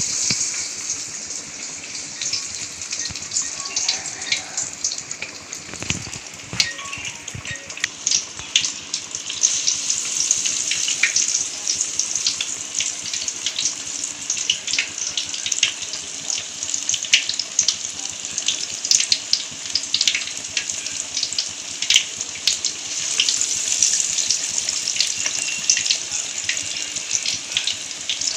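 Banana-flower vadai batter deep-frying in hot oil in a kadai: a steady sizzle full of sharp crackles and pops. A low knock about six seconds in.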